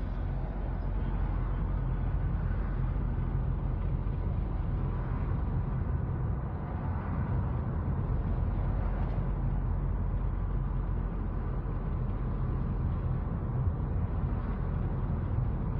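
Steady low rumble of car traffic and road noise, recorded on a phone.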